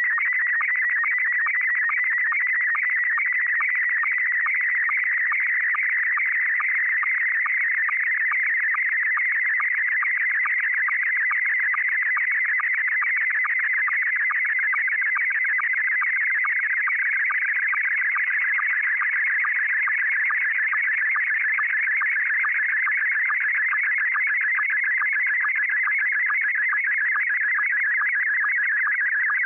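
Slow-scan television (SSTV) picture signal from MMSSTV: a steady, fast-warbling electronic tone that shifts quickly in pitch, cut by a regular rapid ticking of sync pulses as each scan line of the image is sent.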